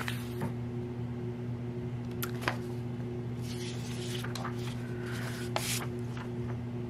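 A printed paper planner insert being picked up and handled: a few soft paper rustles and light taps, over a steady low electrical hum.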